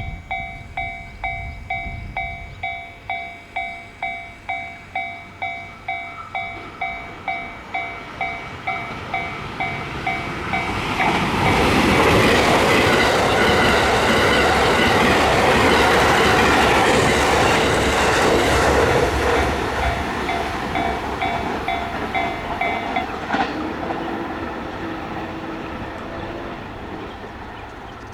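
Japanese railway level-crossing warning bell ringing in steady electronic clangs, about two a second, while a train passes through the crossing with a loud rushing rumble for about ten seconds. The bell stops about 23 seconds in.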